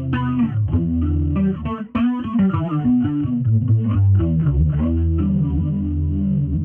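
Electric bass guitar playing a busy line of quick plucked notes, processed through the Bassment bass plugin, with a brief break about two seconds in.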